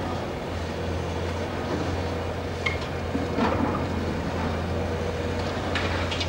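Long-reach demolition excavator running steadily while its hydraulic crusher jaws break into a concrete building, with a few sharp cracks and clatters of breaking concrete and debris, the clearest about halfway and near the end.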